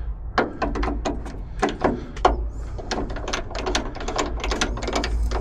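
Rapid, irregular metallic clicking and rattling of small hardware and hand tools being handled, several clicks a second, over a steady low hum.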